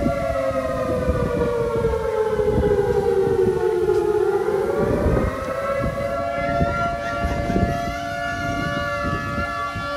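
Air-raid-style siren wailing, its pitch sliding slowly down for about four seconds, then rising back about five seconds in and holding steady.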